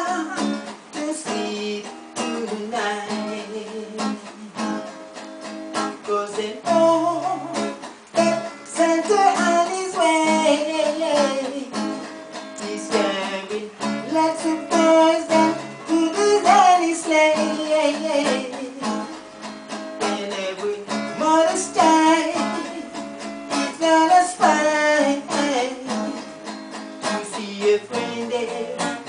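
Acoustic guitar strummed in a reggae rhythm, with a man singing along.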